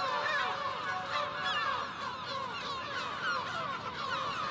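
Nesting colony of lesser black-backed and herring gulls calling, with many short calls overlapping at once.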